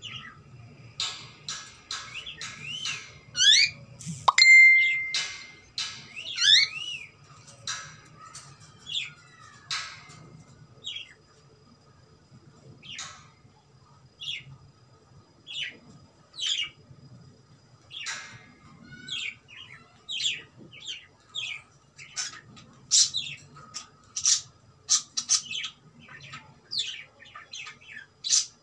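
Cockatiel chirping and whistling: runs of short rising and falling chirps, with a loud held whistle about four seconds in, then scattered chirps that come thicker near the end.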